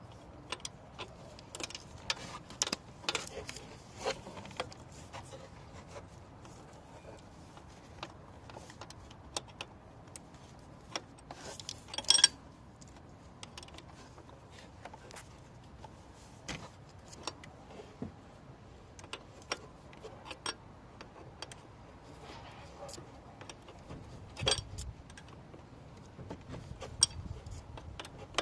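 Metal hand tools and parts clinking and tapping at irregular moments while a car's starter motor is being refitted. There is a louder metallic clank about twelve seconds in and another near the end.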